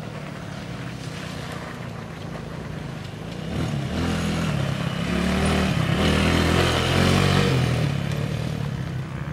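Dirt bike engine running as the bike rides over a muddy trail, getting louder from about three and a half seconds in as it comes close and passes.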